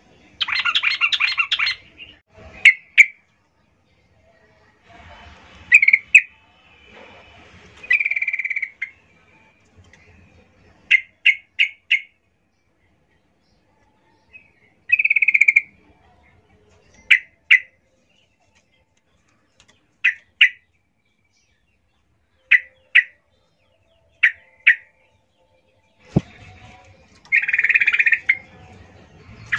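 Yellow-vented bulbul (trucukan) calling: short, bubbly chirps in scattered bursts, quick runs of two to four notes and a few longer chattering phrases, given as a female's calls to a male. A fluttering rustle comes near the end.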